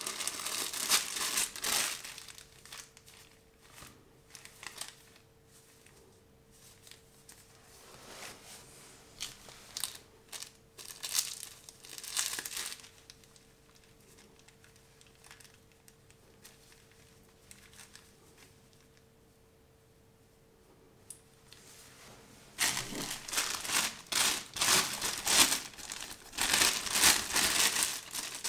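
Clear plastic packaging bags crinkling and rustling as they are opened and pulled off small parts by gloved hands. Loud crinkling for the first two seconds and again over the last six seconds, with scattered shorter rustles in between and a quiet middle stretch where only a faint steady hum remains.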